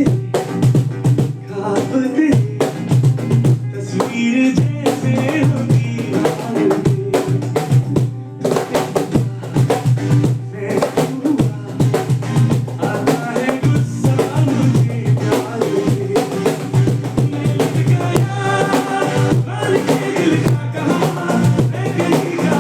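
Clapbox CB11 cajon played by hand in a steady groove, deep bass strokes and sharp slaps, along with a song's melody.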